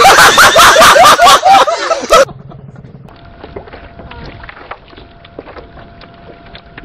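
Water splashing from an inflatable paddling pool, with a fast run of loud, high pitched cries from a person lasting about two seconds and then cutting off abruptly. After that comes quiet wind and water noise on open water, with a faint steady hum.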